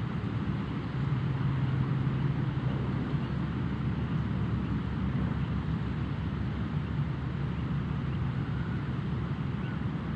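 A steady low rumble with a deep hum under an even noisy hiss.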